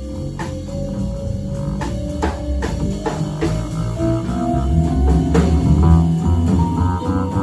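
Free-jazz quartet playing live. A saxophone holds long notes that slowly climb in pitch and step higher near the end, over double bass, drums and scattered cymbal strikes.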